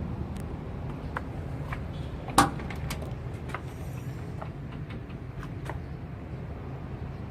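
Shantui road roller's diesel engine running with a steady low rumble, with scattered light clicks and one sharp knock about two and a half seconds in.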